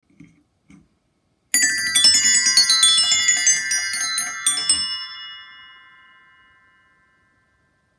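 Bright tuned metal percussion: a quick run of struck notes lasting about three seconds, then ringing on and fading away.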